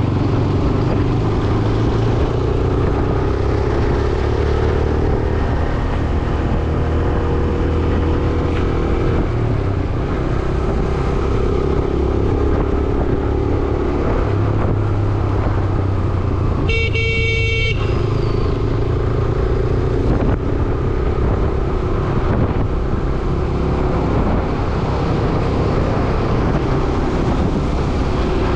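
Motorcycle riding through traffic: steady engine and road noise, with wind on the microphone. Just past halfway, a vehicle horn honks once for about a second.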